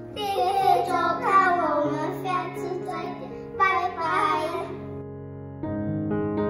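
Two young children's voices saying thanks for watching and goodbye over background music; about five and a half seconds in, a piano tune starts.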